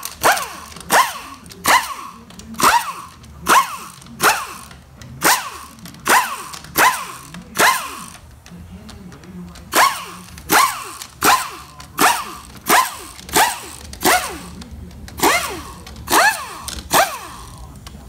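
Cordless power driver spinning out the valve body bolts of a Ford FI0D transmission in short trigger pulses, about one a second, each ending in a falling whine. The pulses stop for a second or so about halfway through, then resume.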